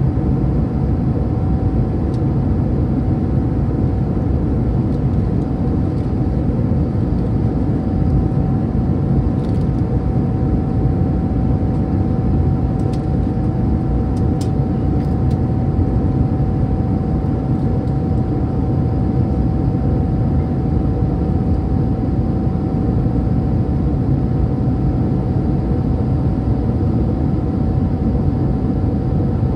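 Cabin noise of an Airbus A319 airliner on its landing approach, heard from a window seat beside the wing and engine. It is a steady engine and airflow rumble with a steady humming tone running through it.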